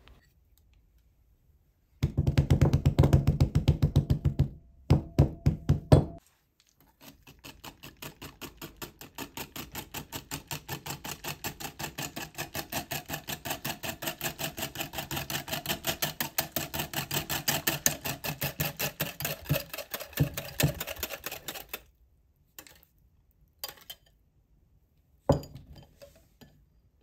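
Metal wire whisk beating a runny egg-and-milk batter in a glass bowl. A short loud burst of vigorous strokes comes first, then a long, steady run of quick, even strokes, and a few scattered taps near the end.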